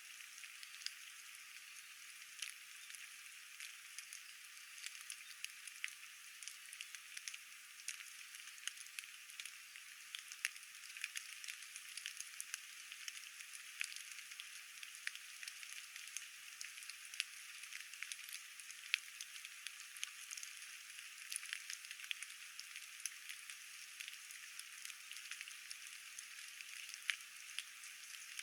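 Light rain falling: a faint, steady hiss with many scattered, irregular drop ticks.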